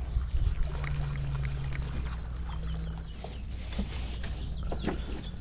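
Small birds chirping in short repeated high notes over a steady low rumble, with a low drone that stops about three seconds in.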